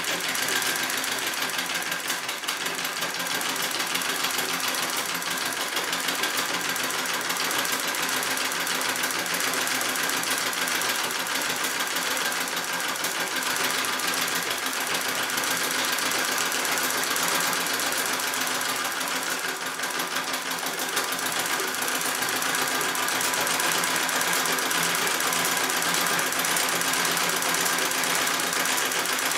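Singer 66 treadle sewing machine running at a steady pace, its needle stitching rapidly in a fast, even clatter during free-motion quilting.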